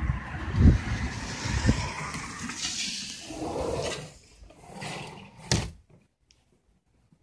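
Heavy rain hissing, with low bumps as the phone is carried, fading over about four seconds; about five and a half seconds in a single sharp knock, and the rain noise is cut off.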